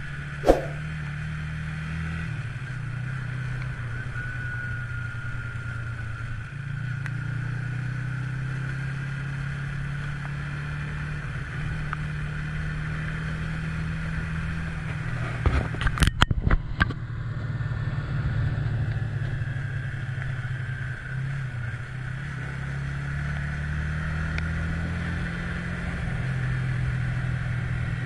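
Yamaha Y15ZR motorcycle's single-cylinder engine running under way, its pitch stepping up and down several times with throttle and gear changes. There is one sharp click about half a second in and a short burst of sharp knocks around the middle.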